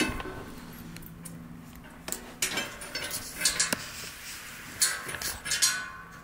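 Short bursts of light metallic clinking and scraping as a metal spiral-staircase baluster is handled and fitted against the stair tread.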